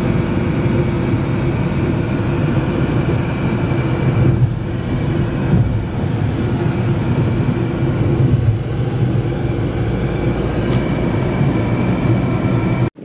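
Steady rumble of a moving car heard from inside the cabin: road and engine noise with a constant drone, cutting off abruptly near the end.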